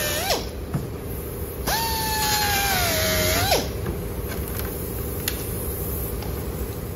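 Handheld air cut-off tool cutting through the fender's wheel-arch lip, its whine winding down just after the start, then a second run of about two seconds whose pitch sags under load before it spins down.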